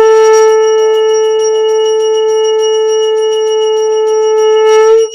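Conch shell (shankha) blown in one long, loud, steady note lasting about five seconds, cutting off near the end, over a hand bell ringing steadily.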